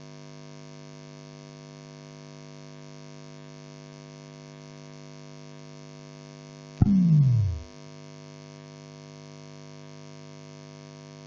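Steady electrical mains hum, a low buzz, on an old cassette tape recording. About seven seconds in, a short loud sound drops sharply in pitch over less than a second, and the hum carries on.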